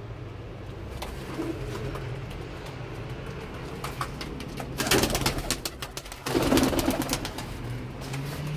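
Domestic pigeons' wings clattering in two bursts as they take off, about five and six and a half seconds in, with pigeon cooing.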